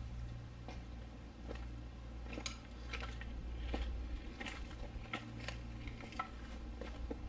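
Footsteps crunching on a dirt trail at walking pace, about one step every 0.7 s, over a steady low rumble.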